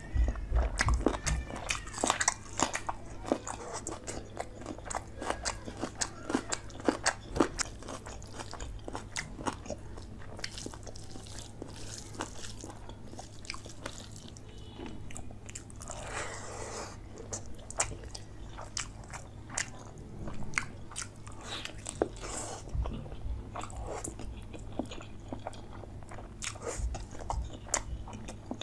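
Close-miked eating of chicken curry with rice: biting and chewing, a dense run of quick wet mouth clicks and smacks. Fingers squelch as they mix rice into the curry on the plate.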